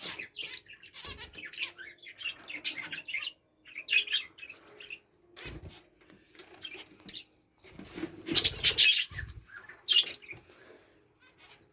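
A mixed flock of budgerigars, canaries and zebra finches in an aviary flight chirping and calling, with louder bursts of wing flapping about eight to nine seconds in.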